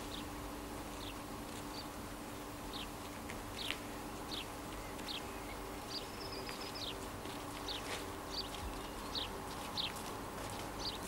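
A bird chirping over and over, short high falling notes about one a second, over a faint steady hum.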